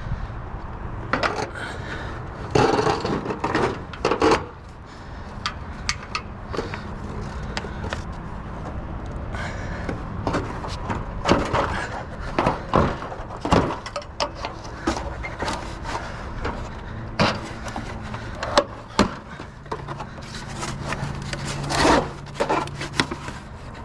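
Junk and scrap being handled and shifted: irregular knocks and clunks, with scraping and rubbing between them.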